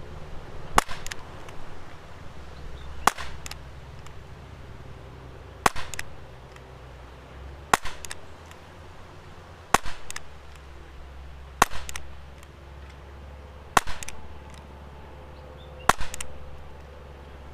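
Umarex Beretta 84 FS CO2 blowback air pistol firing eight shots, about one every two seconds, each a sharp crack followed closely by a fainter click.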